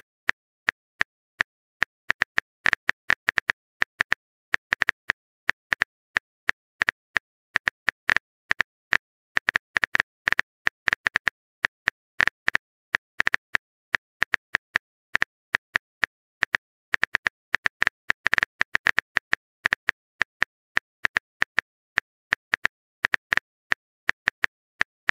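Phone keyboard typing clicks, one short sharp click per letter, coming a few a second in uneven runs with silent gaps between.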